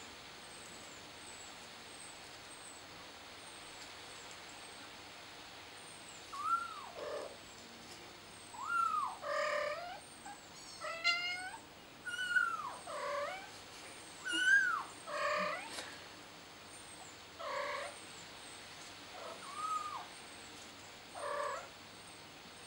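A kitten meowing over and over, about a dozen separate high cries beginning about six seconds in, each bending in pitch: a frightened kitten calling for its mother.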